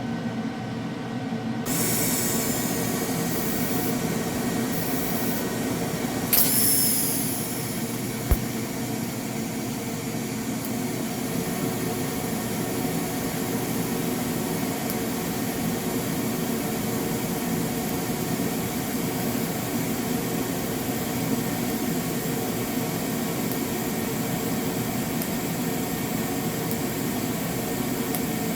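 Everlast TIG 185 welder striking a TIG arc about two seconds in, then a steady arc hiss over the hum of its cooling fan, with a brief louder crackle about six seconds in. It is set to 120 amps while running on 120 V.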